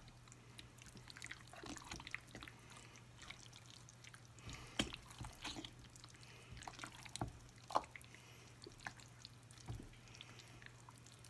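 Wooden spatula stirring thick ground-meat and melted-cheese dip in a slow cooker crock: soft wet squelching with irregular clicks and taps of the spatula against the pot, over a faint steady hum.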